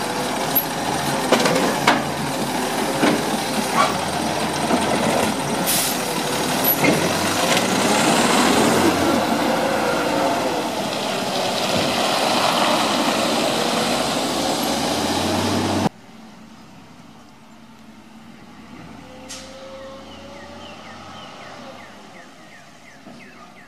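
Labrie Automizer garbage truck dumping a cart with its automated arm, with clanks and knocks, then its compressed-natural-gas engine pulling away, rising in pitch. About two-thirds of the way through the sound drops suddenly to the same truck running quieter, from further off.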